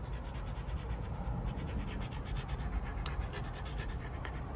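Staffordshire Bull Terrier panting quickly and rhythmically while licking a face close to the microphone, over a low steady rumble.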